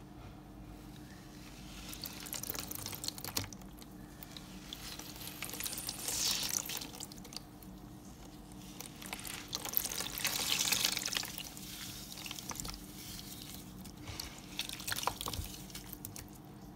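Slime mixed with chunks of floral foam being squeezed and broken up by hand: wet squishing and a dense crackle of small clicks, with louder spells about six and ten seconds in.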